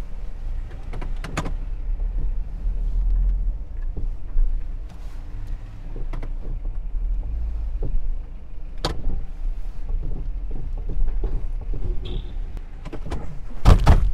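Low, uneven outdoor rumble with scattered clicks and knocks, and one loud knock near the end.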